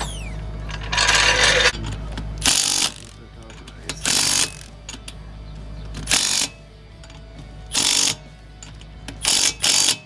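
A power tool run in short bursts, seven in all, each less than a second long, with the first the longest. It sits over a steady low hum.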